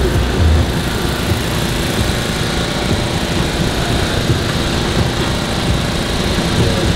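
A small engine running steadily, with a continuous low rumble.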